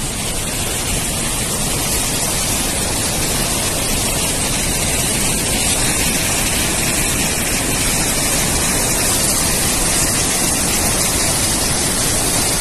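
Floodwater of a river in spate rushing through and past a barrage's open gates: a loud, steady, unbroken rushing noise.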